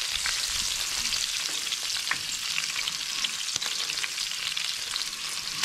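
Hot oil sizzling steadily in a nonstick frying pan, with many small crackles and pops, where minced-beef patties have been frying.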